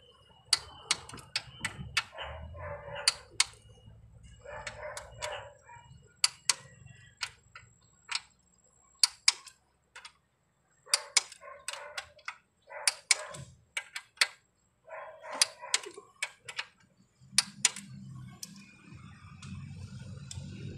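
Ratchet and torque wrench clicking on the cylinder head bolts of a Toyota Corolla engine as they are tightened down. Sharp clicks in quick clusters are broken by short rasping ratchet strokes, and a low rumble comes in near the end.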